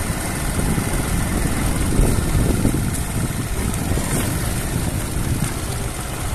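Wind rushing over the microphone on a moving motorbike, over the bike's engine running: a dense, steady rush, heaviest in the bass.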